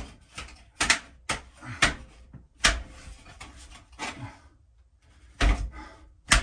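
Sharp plastic knocks and clunks, about six, the loudest two near the end, as a bathroom exhaust fan grille with spring-tension clips is pushed up and seated in its ceiling housing.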